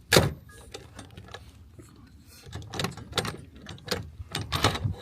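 Metal rifle parts being handled during disassembly: one loud clack right at the start, then a quick run of clicks and knocks in the second half.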